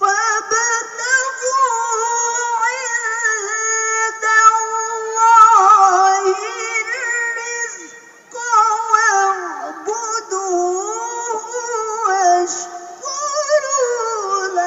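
A woman's voice reciting the Qur'an in the melodic tilawah style, high and held, with ornamented, wavering pitch. It comes in two long phrases, the first ending in a falling cadence with a brief break about eight seconds in.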